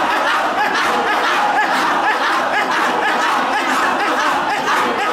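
Many voices of a gathered crowd overlapping continuously, with no single voice standing out.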